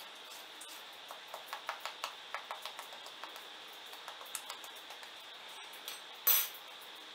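A fork tapping lightly on the crisp, layered shell of a fried coconut karanji, about three or four light clicks a second for several seconds. Near the end comes one louder, ringing clatter, over a faint steady high whine.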